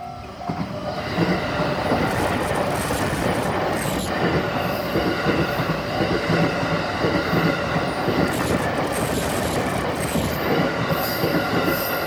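Yokosuka Line train passing through the level crossing at close range. Its wheels rumble and clatter over the rails for about ten seconds. The crossing bell's repeating two-tone ding is heard at the very start before the train drowns it out.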